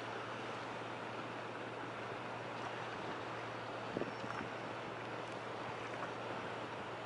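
Steady low engine hum under wind and water noise by a moored work barge, with one light knock about four seconds in.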